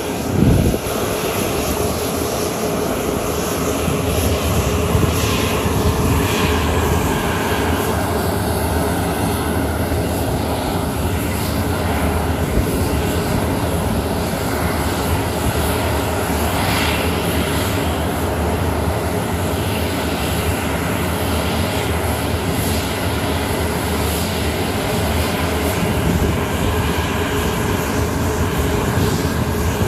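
Military jet aircraft engines running steadily, with a brief thump just after the start.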